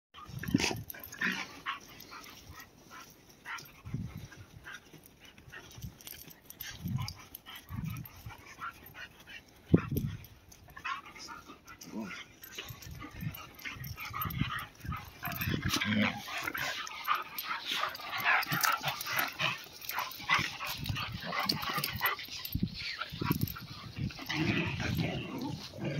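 Dogs at play: scattered scuffles and low thumps, with short dog vocal sounds that get busier from about halfway through.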